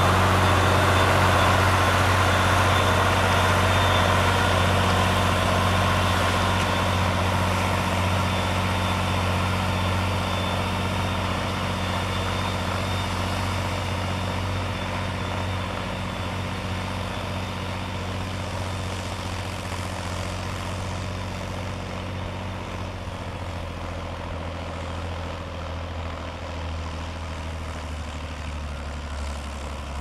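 Farm tractor's diesel engine running steadily under load while pulling a disc harrow through tilled soil, growing fainter as the tractor moves away.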